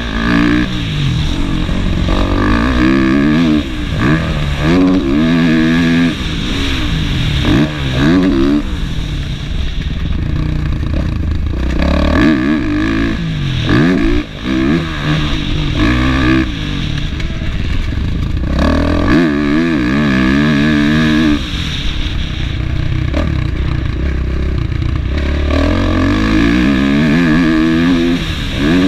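Kawasaki KX450F motocross bike's single-cylinder four-stroke engine, heard from the rider's helmet, revving up and dropping back again and again as the rider opens and closes the throttle and shifts gears on a dirt track.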